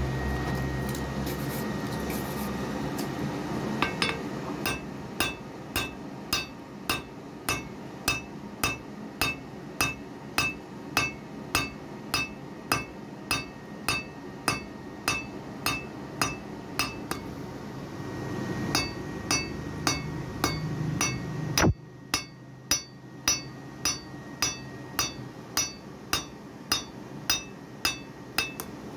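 Blacksmith's hand hammer striking a red-hot laminated iron knife blade on an anvil, shaping it. Steady blows come about two a second, each with a short metallic ring. They start after a few seconds of low rumble and break off briefly a little past halfway.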